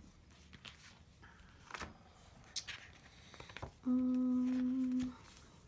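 Sticker sheets and planner pages handled: a few light rustles and taps of paper. About four seconds in, a woman hums a steady "mmm" on one note for about a second.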